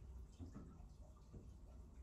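Near silence: faint room tone with a low steady hum and a few soft, irregular ticks.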